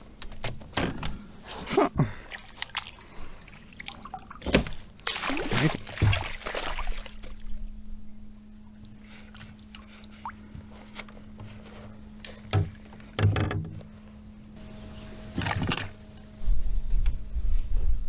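Water splashing and sloshing with irregular knocks and thunks against a kayak as a large northern pike is landed and handled alongside and aboard.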